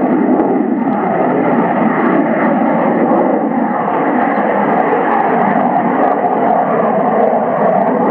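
Jet noise from a Belgian Air Force F-16's single Pratt & Whitney F100 turbofan during a display flight: a loud, steady rushing noise with no distinct pitch.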